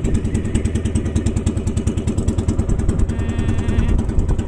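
Motorised bangka's engine running steadily with a fast, even beat.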